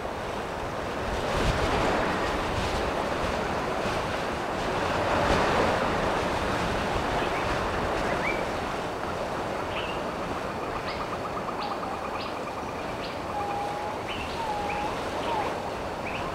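Surf washing on a shore, swelling and falling, with small birds chirping and calling over it in the second half, including a rapid trill.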